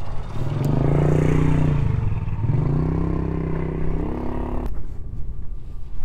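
Honda X-ADV 750's parallel-twin engine pulling under throttle. Its note climbs in pitch, dips and rises again twice, then drops away suddenly about three-quarters of the way in.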